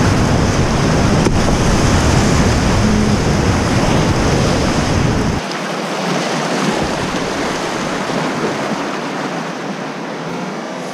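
Whitewater rapids rushing loudly around a kayak, a steady roar of fast water. About halfway through, the deep rumble underneath cuts off abruptly and the rushing water carries on a little quieter.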